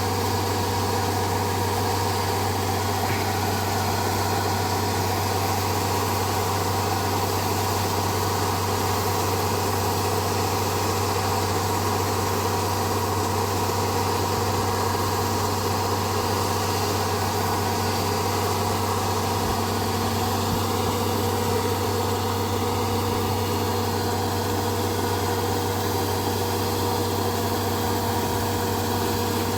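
Rice combine harvester's engine running steadily with a constant low hum, its pitch and loudness unchanging throughout.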